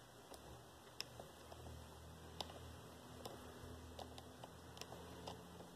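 Near silence with faint, scattered light ticks about once a second: a fine steel crochet hook and cotton thread being worked through stitches by hand.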